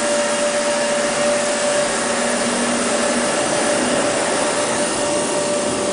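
Steady whir of running machine-tool electric motors with a steady whine; a lower hum drops out about three seconds in.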